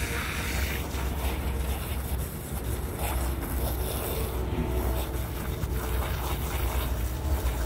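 Wind rumbling on the microphone over a steady hiss of a garden hose spraying water onto a llama's fleece.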